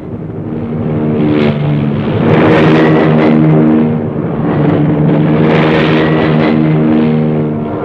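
Propeller-driven piston aircraft engines running at takeoff power, a steady drone that grows louder over the first two seconds.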